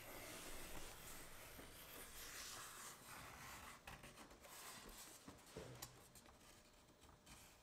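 Faint scratching of a pencil drawn along the edge of a template on a wooden board, strongest in the first few seconds and thinning to light scratches and taps after that.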